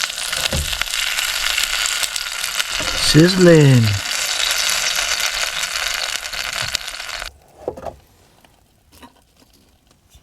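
Egg rolls frying, a steady loud sizzle that cuts off suddenly about seven seconds in, followed by a few faint clicks.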